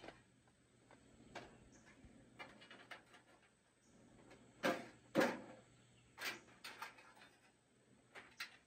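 Coleman 442 camp stove being handled: scattered light clicks and knocks, with two louder knocks close together about halfway through.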